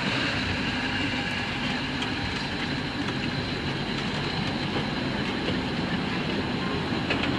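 Narrow-gauge park railway coaches rolling slowly past as the train pulls out, their wheels running steadily on the rails.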